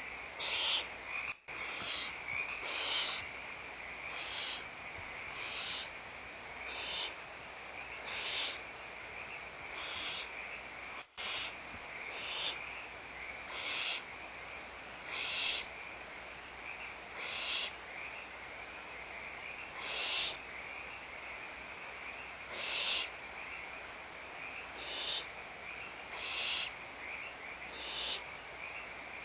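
Barn owls giving harsh repeated hissing calls, one short hiss about every second and a half: the snoring begging call of nestlings at feeding time. A steady high-pitched whine runs underneath.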